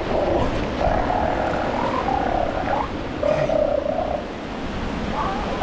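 Northern elephant seals (females and juveniles) calling: about three drawn-out, wavering, fart-like calls follow one another, over the wash of surf.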